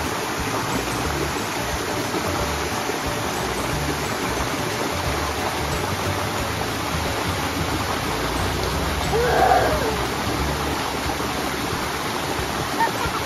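Water of a small rocky mountain stream rushing steadily down a cascade over stones. A brief voice-like sound rises over it about two-thirds of the way through.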